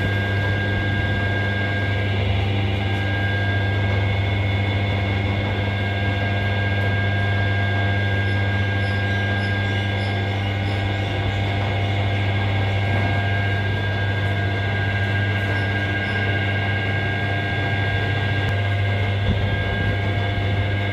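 Flywheel resurfacing lathe running steadily: an even electric-motor hum with a strong low drone and several faint steady whines above it.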